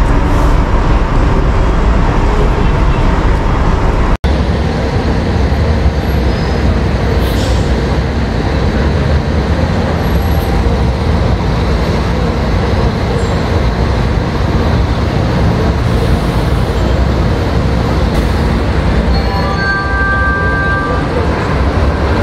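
City buses and street traffic: steady engine and road noise. The sound drops out for an instant about four seconds in, and a short high-pitched tone sounds near the end.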